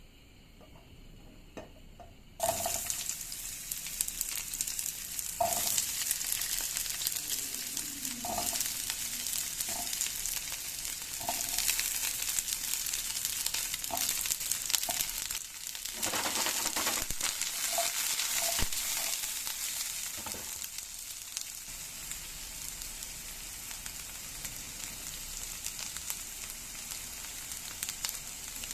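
Food going into hot olive oil in a pan about two seconds in, then sizzling steadily while it is stirred, with short scrapes of the utensil against the pan.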